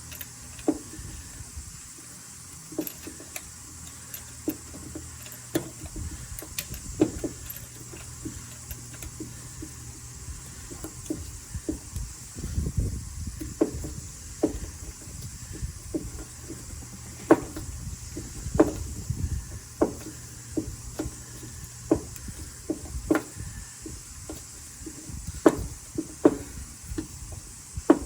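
Irregular clicks and knocks from hand tools and engine parts being handled during a spark plug change, with low rumbling handling noise in the middle stretch.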